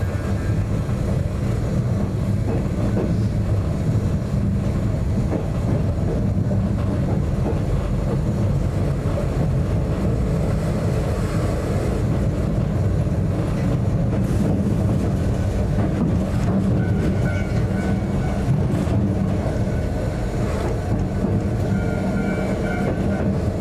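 Narrow-gauge Yokkaichi Asunarou Railway electric train running along the track, heard from inside the cab: a steady motor and gear hum over the rumble of wheels on rail. Brief high tones come in twice in the last several seconds.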